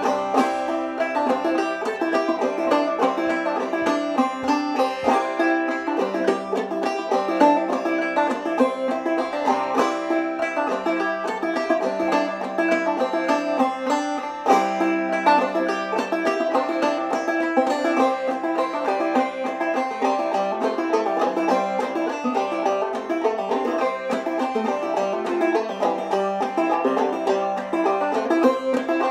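Five-string banjo played clawhammer style, a steady run of plucked melody notes and brushed strums in an old-time fiddle tune. It is in the key of C, in Double C tuning with the fifth string dropped from G to E.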